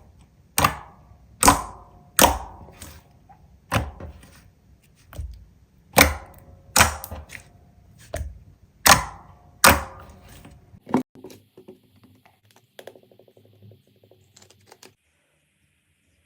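Slime being worked by hand, giving a series of about a dozen sharp crackling pops, roughly one a second. They give way to a few faint, quick clicks near the end.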